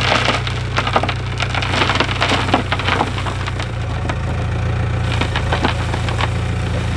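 Backhoe loader's diesel engine running steadily while dirt and stones pour from its tipped front bucket into a trench, crackling and rattling as they land. The pouring eases off a little past the middle and picks up again briefly near the end.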